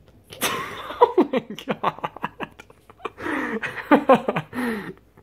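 A person laughing in quick repeated bursts, in two bouts with a short pause a little past halfway.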